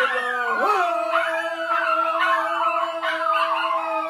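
Two people singing a long wordless, howl-like note together. A lower voice settles onto one pitch just under a second in and holds it steady, while a higher voice warbles and wavers above it.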